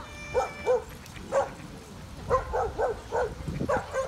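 Dog barking repeatedly: a run of about nine short barks at an uneven pace.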